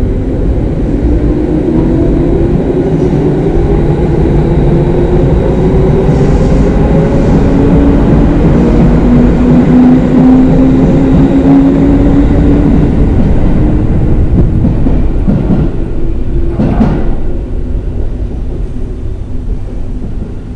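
Tobu 6050 series electric train pulling out of the station, its traction motors whining upward in pitch as it accelerates over a rumble of wheels on rail. The sound is loudest midway as the cars pass, then fades as the train draws away, with a short sharp knock near the end.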